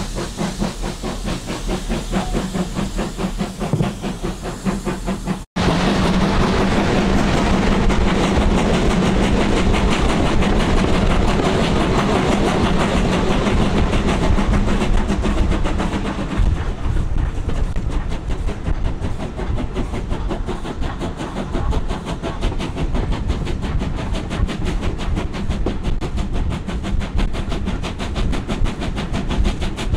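BR Standard Class 2 steam locomotive 78022 working a train: steam hiss and the exhaust of the locomotive, with the train's wheels running along the rails. The sound breaks off abruptly about five seconds in and comes back louder.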